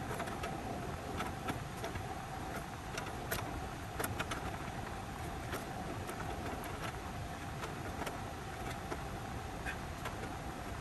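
Steady motor hum with scattered light clicks and taps from hands handling the copper refrigerant lines and fittings at the evaporator coil.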